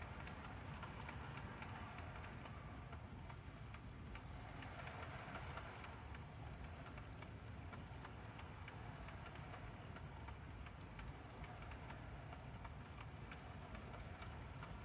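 HO scale model freight train rolling slowly past, its cars' small metal wheels clicking over the track joints at an uneven rate over a faint low rumble.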